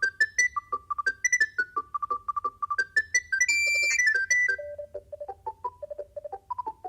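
Alcatel One Touch 320 mobile phone playing a built-in ringtone: a fast melody of short electronic notes, with one longer held high note about halfway through, after which the tune drops to lower notes.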